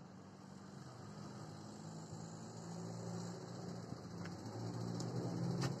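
Land Rover Series III fire engine running as it drives slowly, its engine sound steadily growing louder as it comes closer, with two sharp clicks near the end.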